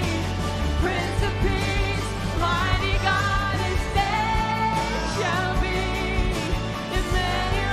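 Live church worship band playing with singing voices holding long notes over a steady bass.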